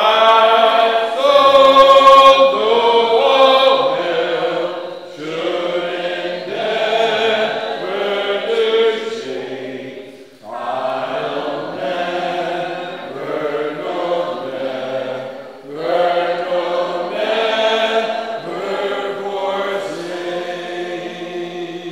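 Congregation singing a hymn a cappella, in long held notes, with short breaks between lines about ten and sixteen seconds in.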